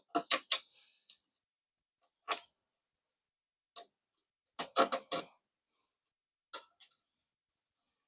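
Small sharp clicks and taps of CPU cooler mounting hardware (screws, spacers and a metal bracket) being handled and set onto a motherboard around the CPU socket. They come at irregular moments, with a quick cluster of several about five seconds in.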